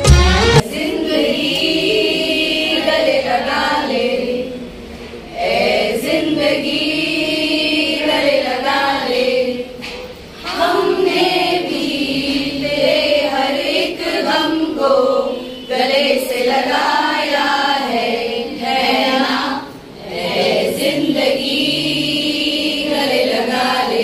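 A group of women singing a song together in unison, in phrases of about five seconds with short pauses for breath between them.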